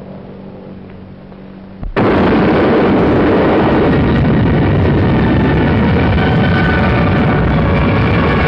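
Nuclear bomb explosion on a film soundtrack, the Ivy King airburst: after a low hum, a loud blast comes in suddenly about two seconds in and goes on as a steady, heavy rumble.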